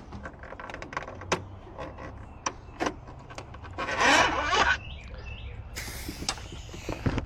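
Locksmith tools working on a vehicle door: scattered clicks and knocks, with a loud scraping rush about four seconds in and another about six seconds in.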